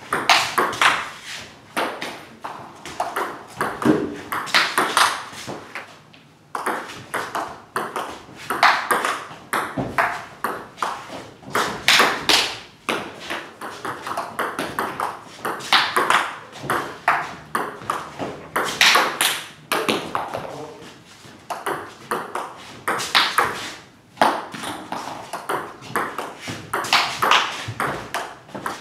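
Table tennis ball clicking off the bats and the table in quick rallies, one bat faced with long-pips rubber playing backhand attacks against backspin. The clicks come in runs with brief pauses between rallies.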